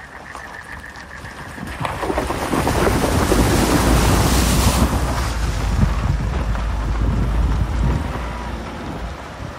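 A car driving through a shallow stream crossing: water splashing and spraying against the wheels and underbody over a deep rumble, heard from inside the car. It builds about two seconds in, is loudest through the middle and eases off near the end.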